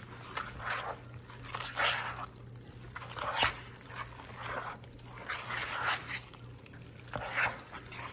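A metal spoon stirring a thick, wet chicken-and-rice casserole mixture with crunchy French-fried onions in a large mixing bowl: repeated squelching, scraping strokes about once a second, with one sharp click about three and a half seconds in.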